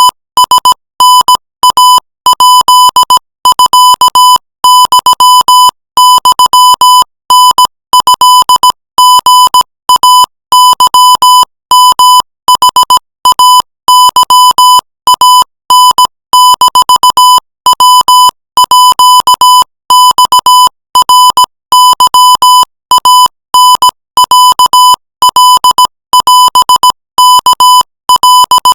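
Morse code sent as a steady beep tone keyed on and off in short dots and longer dashes at 20 words per minute, spelling out Thai text.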